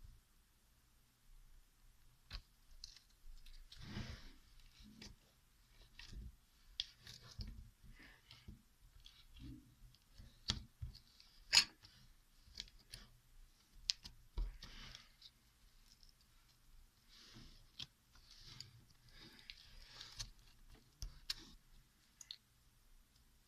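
Slime being handled by hand, giving irregular small clicks and pops, with one sharper click about halfway through.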